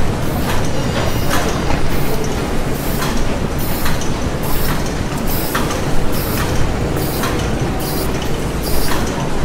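Factory machinery ambience: a loud, steady mechanical din with a low rumble and frequent, irregular clicks and knocks, about two a second.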